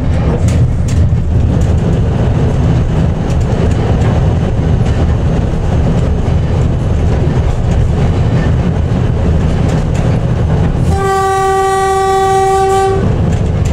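Diesel locomotive DSA273 running along the track, with a steady low rumble and the wheels clicking over the rail. Near the end the horn sounds one steady note for about two seconds, warning of the level crossing just ahead.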